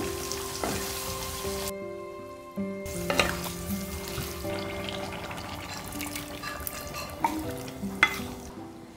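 Plums and chili sauce frying and sizzling in a pan as a wooden spatula stirs them, with a few sharp knocks of the spatula against the pan. The sizzle drops out briefly about two seconds in.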